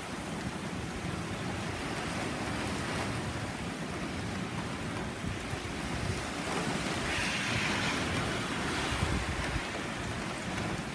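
Typhoon wind and heavy rain: a steady rushing with a stronger gust that swells about six or seven seconds in and fades again, and wind buffeting the microphone.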